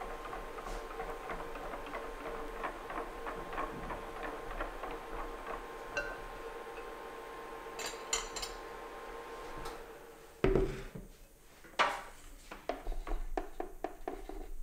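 Wire whisk beating a pastry-cream base in a glass bowl, light rapid clinks against the glass over a steady hum. The hum cuts off about ten seconds in, followed by a few sharp knocks and clatters of cookware being set down on the counter.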